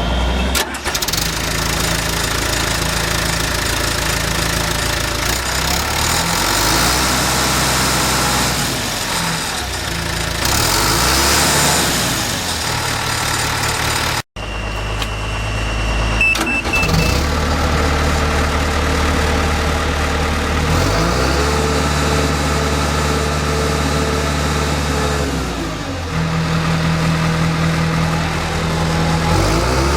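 John Deere 450G crawler dozer's diesel engine running, its speed rising and falling several times as it works. A short run of high beeps comes just after an abrupt cut about halfway through.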